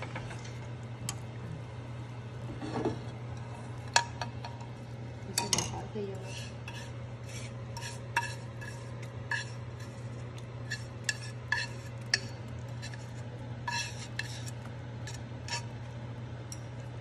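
Metal ladle stirring rice porridge in a stainless steel pot, with scattered clinks and scrapes of metal on the pot, the sharpest about 4 and 5.5 seconds in. A steady low hum runs underneath.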